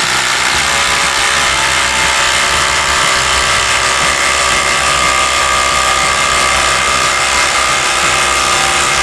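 Ryobi brushless impact driver hammering steadily under load as it drives a long screw into a wooden beam.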